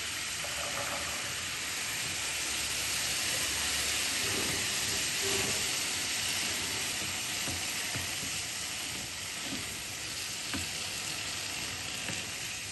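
Boiled black chickpeas sizzling in a pan of hot spiced oil while being stirred, a steady frying hiss, with a few light clicks near the end.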